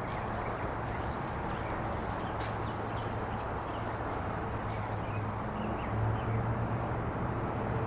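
Steady outdoor background noise with a constant low hum, with faint high chirps and light clicks scattered through.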